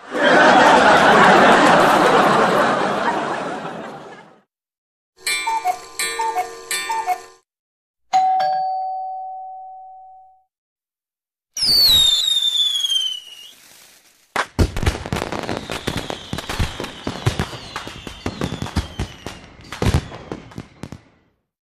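A run of separate stock sound effects: a loud burst of noise that fades out over about four seconds, a short doorbell-like chime heard three times, and a single ding ringing away. Then come high whistles falling in pitch, followed by several seconds of crackling and popping, like fireworks.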